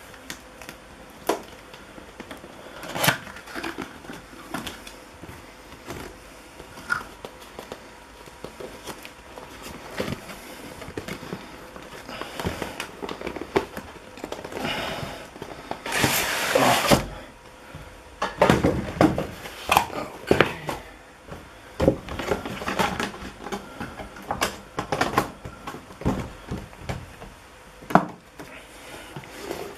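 A cardboard graphics-card retail box is opened and handled. There are scattered taps and knocks, and a longer scraping rustle of cardboard sliding about halfway through, followed by a run of knocks as the inner box is set down and moved.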